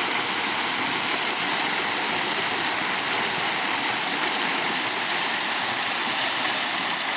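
Water of a waterfall stream rushing steadily over rocks, an even unbroken hiss.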